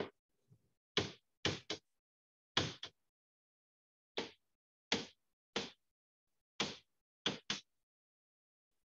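A pen stylus striking a writing surface during handwriting: about ten short, sharp taps at irregular intervals, with a gap of over a second about three seconds in.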